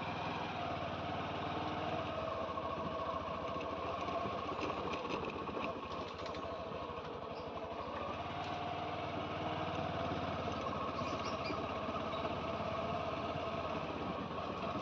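Small motorcycle engine running while riding slowly along a rough dirt track. The engine note dips and climbs again twice as the throttle changes.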